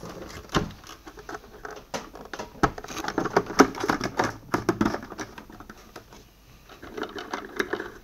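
Clicks, knocks and rattling of a Vax wet and dry vacuum's plastic housing being reassembled by hand, with parts pressed together and bolts driven home with a box driver. The clatter is busiest about three to five seconds in.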